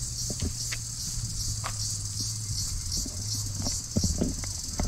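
Irregular footsteps on a dirt and gravel path, over a steady high-pitched hiss.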